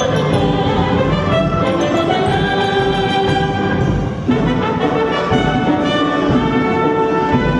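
Live youth orchestra playing a fast Mexican son abajeño, with trumpets and trombones carrying the tune over strings and a low rhythmic pulse. The sound dips briefly a little past halfway, then the brass comes back in.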